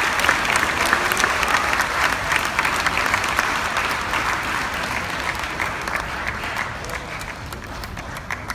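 An audience applauding, with many hands clapping at once; the applause slowly dies away over the seconds.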